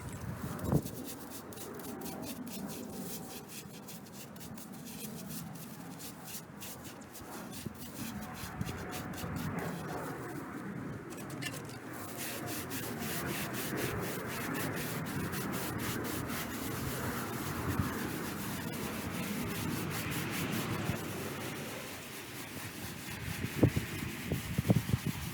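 Brush scrubbing the stone face of a gravestone: a continuous rasping rub of repeated strokes, with a few sharper knocks near the end.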